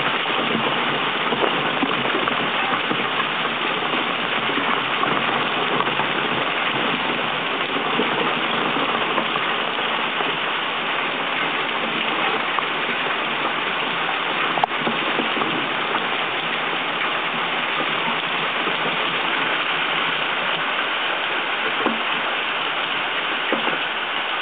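Steady hurricane rain and wind, an even rushing noise, with a single sharp click about halfway through.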